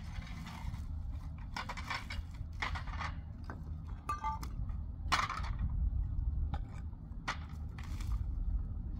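Stones and rubble being scraped, crunched and knocked as they are moved by hand, in a string of separate gritty strokes over a steady low rumble.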